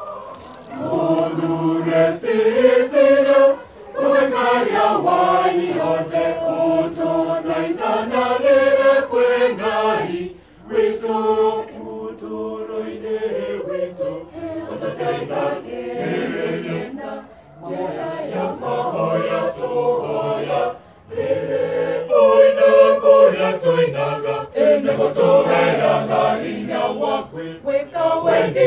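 Mixed choir of men and women singing a cappella in harmony, in held phrases with short breaks between them.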